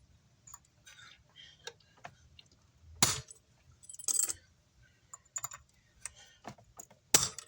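Hand tools clicking and tapping on an amplifier's circuit board and parts as they are pried off, in scattered light clicks. Sharper, louder clicks come about three and four seconds in and again near the end.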